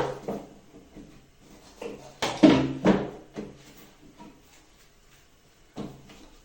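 Knocks and clatter of a bathroom cabinet being handled during cleaning, its door and fittings bumped: one knock at the start, a louder cluster about two to three seconds in, and another knock near the end.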